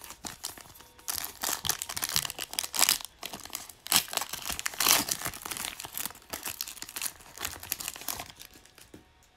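Foil wrapper of a Prizm Draft Picks trading-card pack being torn open and crinkled by hand, a dense crackling that runs from just after the start until near the end.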